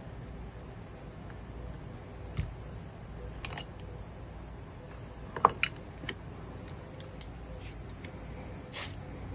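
A few light, sharp clicks and taps from soldering work on a copper-foiled glass bevel, the loudest about halfway through, over a steady high-pitched hiss.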